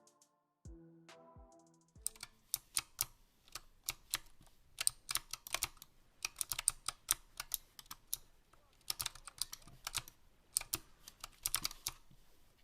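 Typing on a Razer Huntsman Mini keyboard with optical switches: quick, irregular key clicks in bursts. They start about two seconds in, after a short stretch of music that cuts off.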